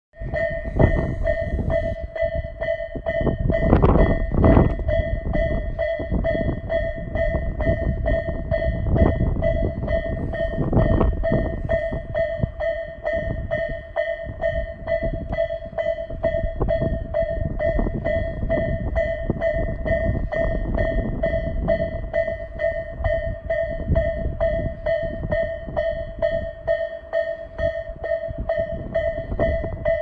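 Electronic railway level-crossing warning bell of the Tobu Isesaki type, from a newly replaced speaker, ringing in a steady, evenly repeating rhythm as the barriers come down. A few louder low rumbles come through in the first dozen seconds.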